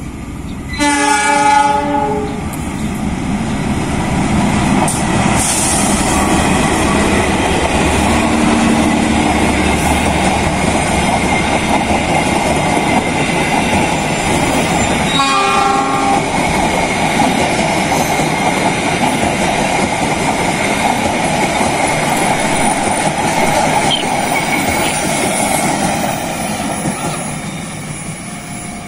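Diesel-hauled passenger train passing close by. The locomotive's horn sounds about a second in and lasts over a second, followed by the steady rumble and clatter of the coaches' wheels on the rails. A second, shorter horn blast comes about fifteen seconds in.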